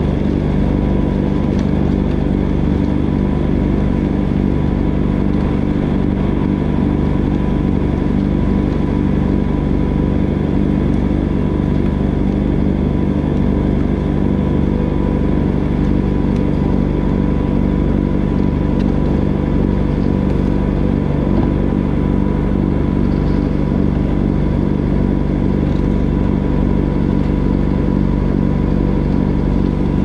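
Jacobsen TurfCat II's diesel engine running steadily under load, driving a 51-inch two-stage front-mount snowblower that is throwing snow.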